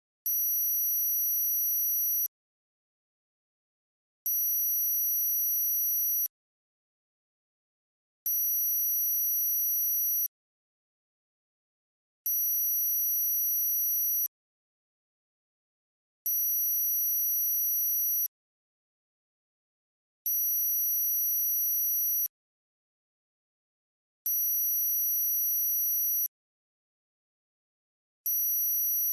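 Synthesized high-pitched sine tone for tinnitus masking, pulsing on for about two seconds and off for two seconds, over and over, with silence in the gaps.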